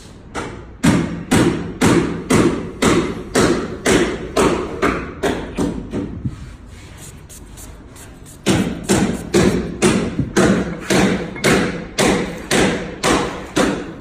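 A steady series of dull thumps, about two a second, stopping for about two seconds midway and then resuming.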